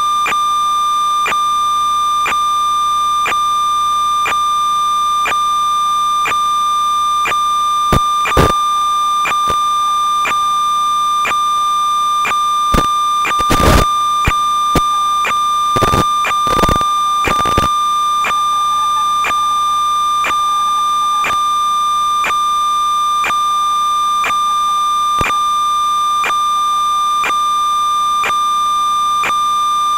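Steady electronic whine with a faint click about once a second, the hum and buzz of an analog 5.8 GHz FPV video link's audio channel as recorded by the goggles. There are several loud bursts of static crackle about a third of the way in and again around the middle.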